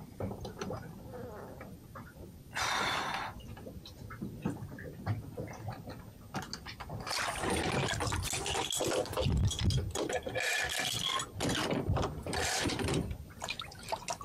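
Water splashing and sloshing in irregular bursts, with scattered knocks, as someone works in the water around a swamped boat.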